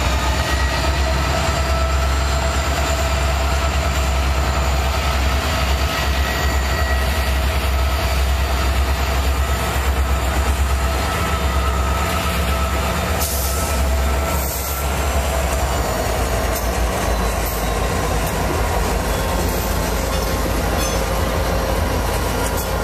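A consist of EMD diesel-electric freight locomotives rolling past, with a deep steady engine drone and several high whining tones that drift slightly in pitch over it. The deep drone changes and eases about two-thirds of the way through as the locomotives go by.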